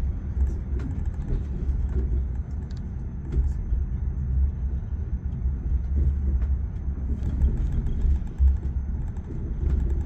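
Passenger train running on the tracks, heard from inside the carriage: a steady low rumble with occasional faint clicks, typical of wheels crossing rail joints and points.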